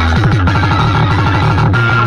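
Loud electronic competition DJ music blasted through a horn-loaded sound-box rig. Just after the start, the long, slowly falling bass tones give way to a fast stutter of short repeated notes, about ten a second, which breaks off near the end back into a long sliding tone.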